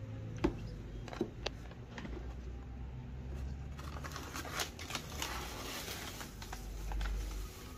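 A sheet of paper rustling and crinkling as a hand lifts and folds it back inside a plastic box. Before that come a few light clicks and taps.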